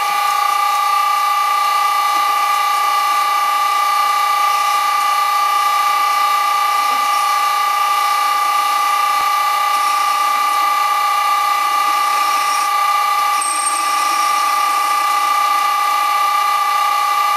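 Vintage Karger lathe's electric motor running on an old Allen-Bradley VFD, giving off a loud, steady whine of several high tones sounding together. This is the harmonics noise of a VFD-driven motor, called horrible sounding.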